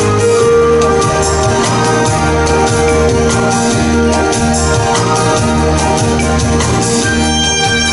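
Recorded dance music with sustained organ-like keyboard chords over a steady pulsing bass line and light percussion.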